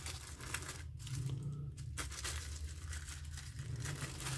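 Packaging crinkling and rustling with scattered small clicks as an accessory is handled and unwrapped, over a steady low hum.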